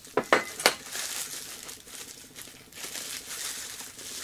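A clear plastic packing bag crinkling and rustling as a circuit board is pulled out of it by hand. It opens with three sharp clicks within the first second.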